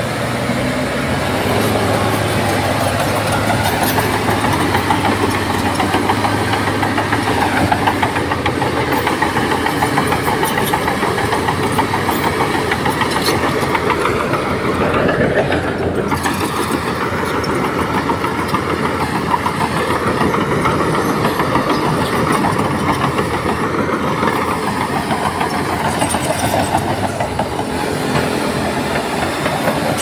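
Diesel engines of heavy earthmoving machinery, a crawler bulldozer and dump trucks, running steadily under load, with a brief swell in engine pitch about halfway through.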